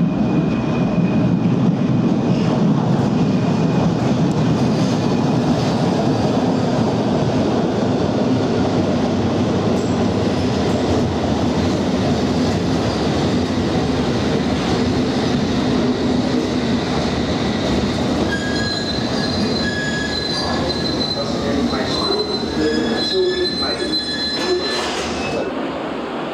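London Underground S stock train running in along the platform with a steady, loud rumble of wheels and traction equipment. During the last third several high wheel-squeal tones sound together, then stop shortly before the end.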